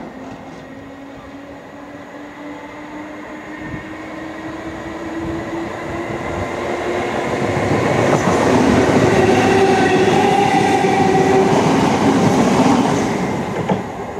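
British Rail Class 317 electric multiple unit approaching and passing close by. A whine rises steadily in pitch as it draws near, and the sound is loudest as the carriages pass from about eight seconds in, with wheel-on-rail noise. It falls away just before the end.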